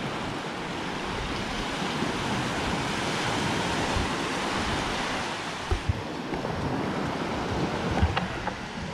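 Small waves washing up on a sandy beach, a steady rush that eases about six seconds in, with a few low bumps of wind on the microphone.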